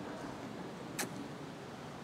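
Low steady background hiss in a pause between speech, with one short sharp click about a second in.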